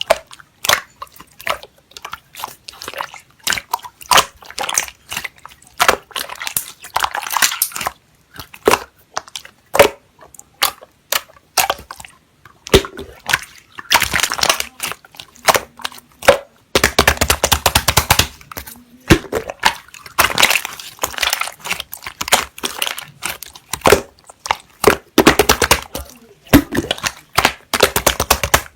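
Gold and purple pearl slime being pressed, folded and stretched by hand, giving many sharp sticky clicks and pops, with stretches of fast crackling pops near the middle and again toward the end.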